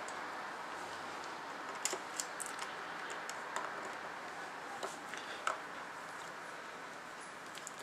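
Small screwdriver turning a string-guide screw down into a guitar headstock: a few faint, irregular clicks and ticks of metal on metal, over a steady low hiss.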